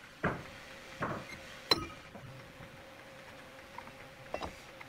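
Steel spindle-moulder cutter heads knocking and clinking against the spindle and machine table as a cutter is swapped on the spindle: four separate metallic knocks, the sharpest about a second and a half in, another near the end.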